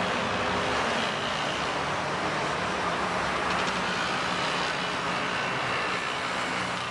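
Steady roar of road traffic, an even rushing noise with a faint low hum running under it.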